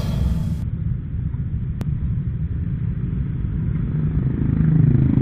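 Steady low rumble of a motorcycle's engine and road noise, picked up by a camera mounted on the moving bike as it creeps through traffic, growing a little louder near the end. A single faint click about two seconds in.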